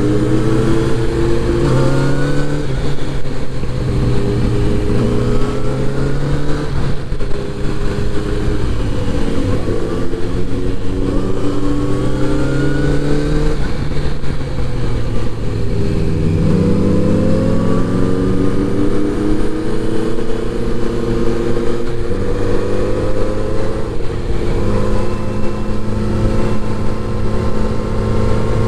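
Kawasaki inline-four motorcycle engine under way, accelerating and shifting up several times: the pitch climbs with each pull and drops back at each gear change.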